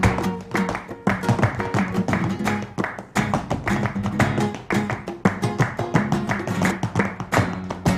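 Flamenco music: an acoustic guitar playing, with many sharp percussive strikes in quick succession.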